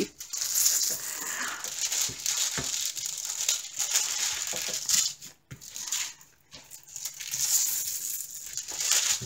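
Clear plastic film on a diamond painting canvas crinkling and rustling as hands smooth and flatten the canvas, with a few light ticks.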